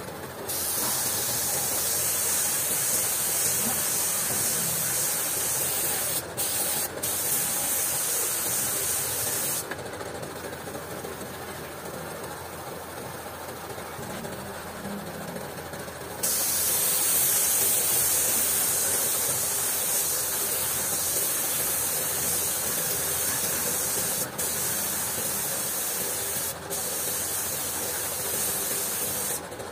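Spray gun hissing as paint is sprayed onto a motorcycle front fork tube, in two long passes of about nine and thirteen seconds with a quieter pause between, each broken by a couple of brief stops of the trigger.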